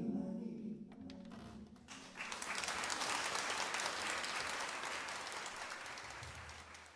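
The last chord of a live acoustic band's song dies away, then audience applause starts about two seconds in and slowly fades out near the end.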